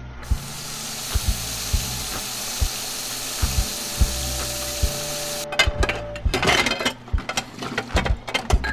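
Kitchen tap running into a sink full of dishes as a steady hiss, which stops suddenly about five and a half seconds in; then a quick run of clinks and clatters of china plates and bowls being handled. Background music with a low, regular beat underneath.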